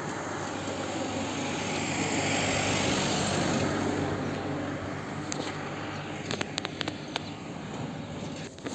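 A road vehicle passing by, its noise swelling to a peak about three seconds in and then fading. A few light clicks follow near the end.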